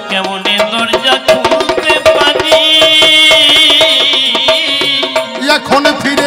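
Instrumental interlude of Bengali kobi gaan accompaniment. A hand drum keeps a fast, steady rhythm under a melody instrument, which holds one long, wavering high note in the middle.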